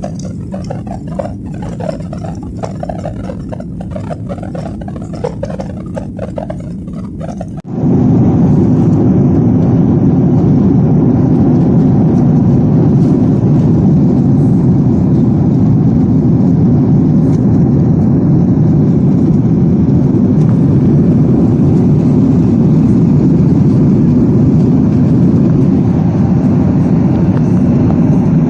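Airliner cabin noise: the steady rush of jet engines and airflow heard inside the passenger cabin, which jumps abruptly to a much louder, deeper rush about eight seconds in and then holds steady.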